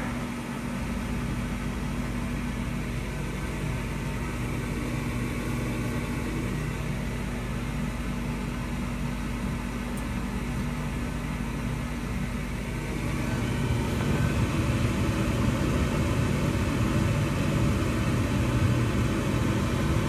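The newly installed replacement draft inducer motor of a 2003 Carrier gas furnace is running at start-up with a steady hum. It runs smoothly on its new bearings, without clanking, and is the first stage of the furnace's ignition sequence. The sound grows somewhat louder about 13 seconds in.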